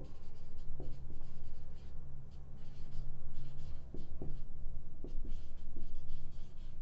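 Marker pen writing on a whiteboard: a run of short, irregular scratching strokes as letters are written, over a steady low hum.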